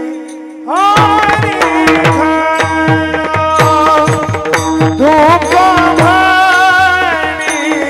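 Marathi Warkari devotional singing in raga Bhairavi. A steady drone is joined, a little under a second in, by a gliding melodic line and regular mridang strokes whose low bass notes fall in pitch.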